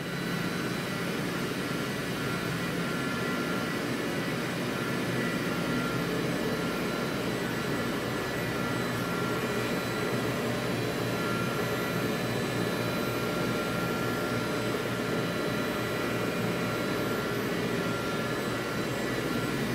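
Walter Helitronic CNC tool and cutter grinder running a warm-up program: a steady mechanical whir with a few faint high-pitched whines over it.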